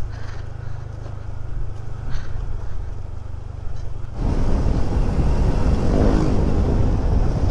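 Honda Click 125 scooter's single-cylinder engine running steadily at low speed. About four seconds in it suddenly gets louder and rougher as the throttle opens, with wind noise on the microphone.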